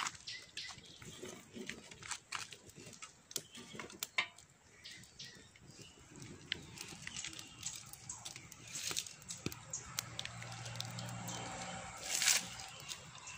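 Firewood crackling in a clay hearth under a cooking pot, with scattered irregular pops and clicks. A low steady hum comes in for a couple of seconds near the end.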